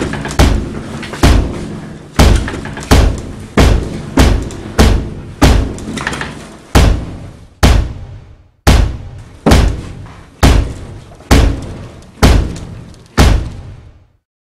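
Loud, repeated pounding on a cabin, with about seventeen heavy blows at a steady pace of roughly one every three-quarters of a second. Each blow rings out briefly, and the pounding stops suddenly near the end.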